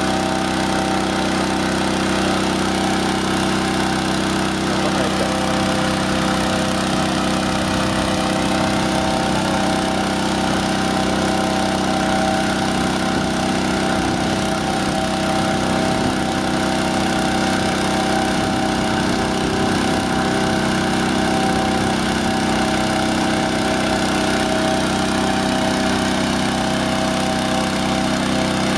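Portable engine-driven balloon inflator fan running steadily at constant speed, blowing cold air into a hot air balloon envelope during cold inflation.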